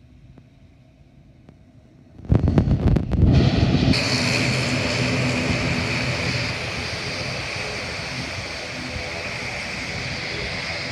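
ATR 72-600 turboprop's engines and propellers running as it turns to taxi. Quiet at first, then about two seconds in a sudden loud blast with wind buffeting on the microphone from the prop wash, settling into a steady loud drone with a high whine over it.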